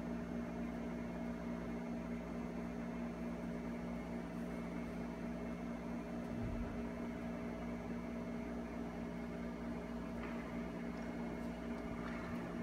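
Steady room hum with a few constant low tones over a background hiss, and one faint low thump about six and a half seconds in.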